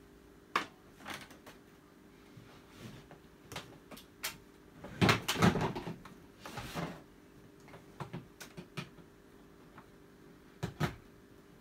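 Scattered clicks and knocks of handling as a mains plug is set up and pushed into a safety-plug socket, with the loudest cluster of knocks about halfway through. The vacuum motor is not running.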